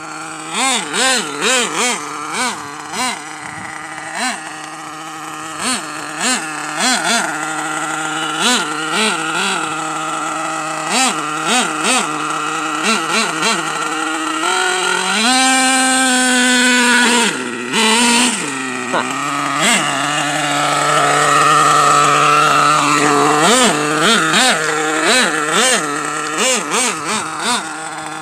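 Small nitro engine of an Ofna RC monster truck running, blipped up and down in short repeated revs, with one long high-pitched full-throttle run about halfway through before dropping back. Sharp clicks are scattered through it.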